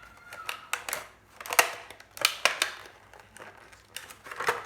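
Packaging being handled and opened: cardboard and plastic rustling, with several sharp clicks and knocks.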